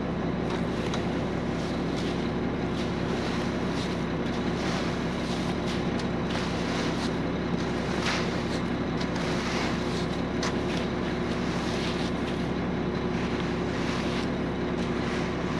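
An engine running steadily with an even hum, with irregular scraping strokes over it, typical of a screed board being worked across wet concrete.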